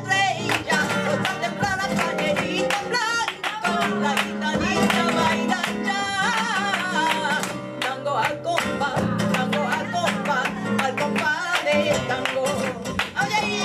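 Live flamenco tangos: a singer's wavering cante over flamenco guitar, with frequent sharp percussive hits.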